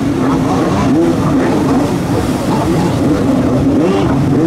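Stand-up jet skis' two-stroke 1200 cc Yamaha engines revving up and down, the pitch rising and falling repeatedly as the riders turn and spin.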